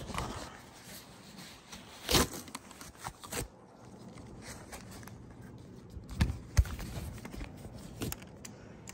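Paper towel and newspaper rustling and crinkling as a toy is unwrapped by hand, with a few sharp knocks against the countertop, the loudest about two seconds in and twice a little after six seconds.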